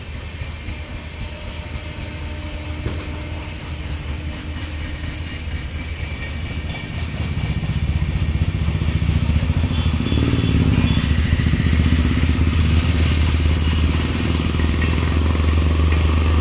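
A train of LHB passenger coaches rolling past on the rails, a steady low rumble with light rattling. It grows louder about halfway through as the rear of the train, with its luggage-brake-generator car, comes nearer.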